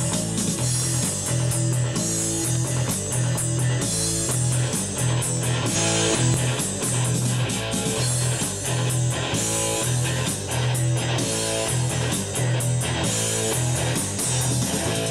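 Rock song playing back from a Fostex reel-to-reel multitrack tape machine: guitar and drums over a pulsing bass line.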